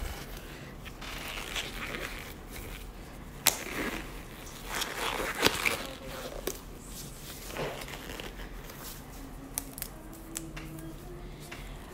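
Blue disposable gloves being pulled onto the hands: rustling and crinkling, with a few sharp snaps and clicks scattered through.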